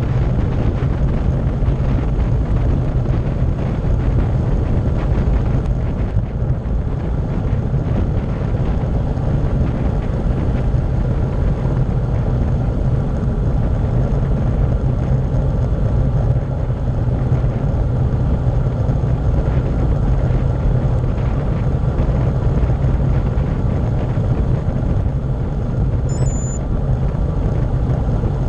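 Wind buffeting a bike-mounted action camera's microphone during a fast downhill bicycle descent: a steady low rumble.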